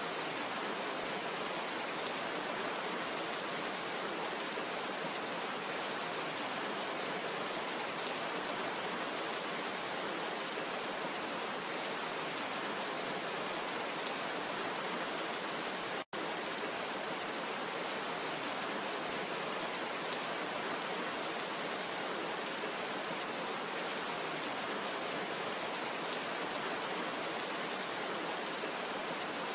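Steady heavy rain falling, an even, unbroken hiss. It cuts out for an instant about halfway through.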